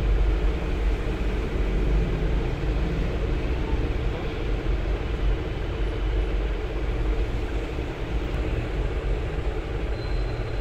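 Steady low rumbling background noise with a faint hiss, unchanging throughout.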